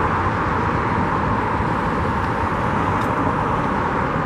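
Steady rush of freeway traffic: an even, unbroken noise of tyres and engines.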